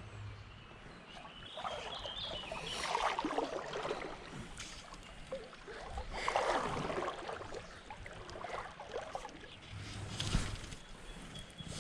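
River water sloshing and splashing in two surges, the first a few seconds long, the second shorter, with a smaller one near the end.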